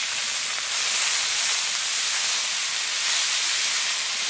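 Freshly added chopped matar kalai greens sizzling in hot oil in a wide karahi, a steady loud hiss as their moisture steams off.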